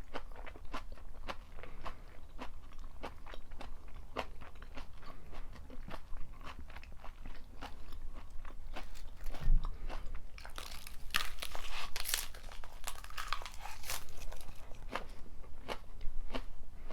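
Close-miked chewing of crisp stir-fried napa cabbage and pork: a steady run of wet crunches, two or three a second, growing denser and crisper midway.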